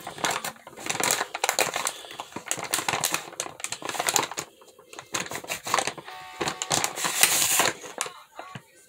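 A plastic packet of pink grapefruit facial cleansing wipes crinkling as it is handled and opened and a wipe is drawn out: dense, irregular crackles that thin out near the end.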